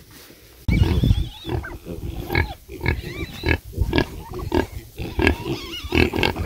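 Pigs calling in a rapid run of short grunts and squeals, some sliding up and down in pitch, starting suddenly about a second in.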